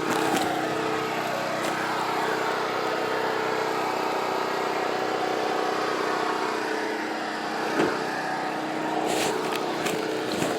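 Steady mechanical hum with several low tones held level throughout, and a few light clicks near the end.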